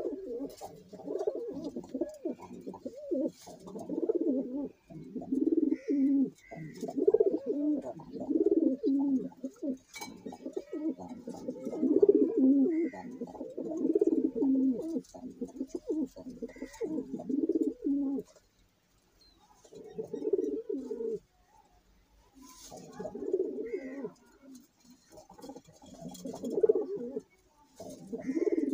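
Several domestic pigeons cooing, the low coos overlapping almost without a break for about the first two-thirds, then coming as separate coos every few seconds.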